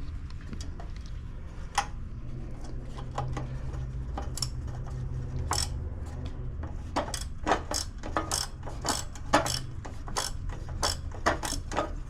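Ratchet wrench clicking as a bolt is run in on a small engine. The clicks are sparse at first and come in quick runs through the second half.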